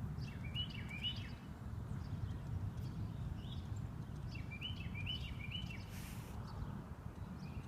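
A small bird chirping in short, quickly repeated notes, in two runs, the first right at the start and the second about four seconds in, over a steady low outdoor rumble.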